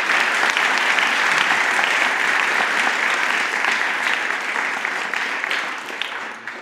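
Audience applauding, many hands clapping at once, easing off near the end.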